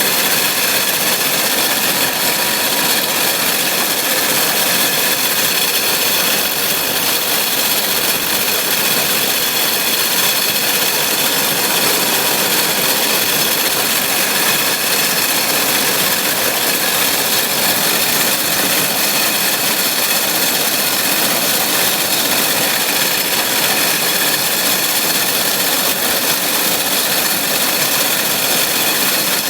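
New Holland 848 round baler running with the tractor that powers it: a constant mechanical din with steady high whining tones over it, unchanging throughout.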